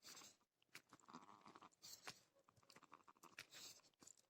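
Faint, irregular crunching of footsteps while walking.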